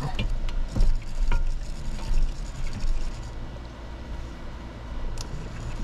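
Several knocks from a boat's hydraulic steering helm as the wheel is turned back and forth to bleed air out of the system, over a steady low rumble.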